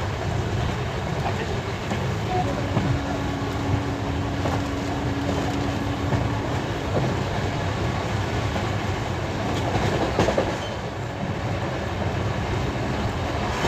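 Passenger train running at speed, heard from on board: a steady rumble of wheels on the track with clickety-clack over the rail joints. A faint steady hum comes in for a few seconds partway through.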